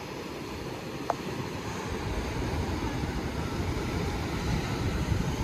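Steady wash of ocean surf breaking on the shore, with wind buffeting the microphone. A single brief tick about a second in.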